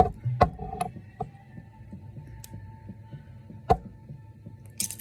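Handcuff lock being picked with a bobby pin: a few sharp metallic clicks, three close together at the start and another a few seconds later, with a brief scrape near the end.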